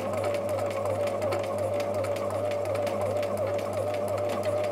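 Bernina 1008 sewing machine running at a steady speed, sewing a triple zigzag stitch through denim, with each stitch sewn three times back and forth over itself. A steady motor whine with rapid, even needle clicks.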